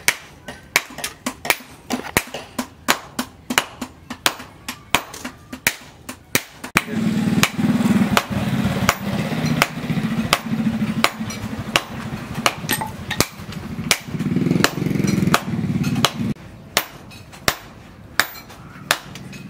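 Hand hammer striking a red-hot steel machete blade on an anvil, a steady run of sharp blows at about two to three a second. For about ten seconds in the middle a low hum runs under the blows.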